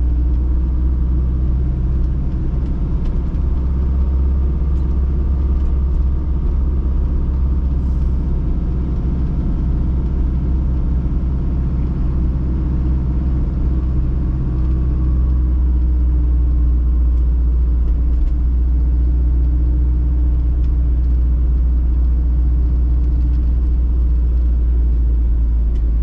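Troller 4x4 driving along: engine and road noise as a steady low rumble.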